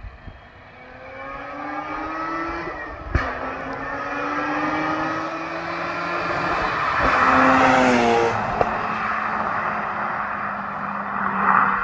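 Mazda RX-8's two-rotor Renesis rotary engine through a TRC aftermarket exhaust, accelerating hard toward the listener, rising in pitch through a gear, dropping in pitch, and rising again, with a sharp crack about three seconds in where the pitch drops. It is loudest about seven to eight seconds in, where the pitch falls as it passes close by.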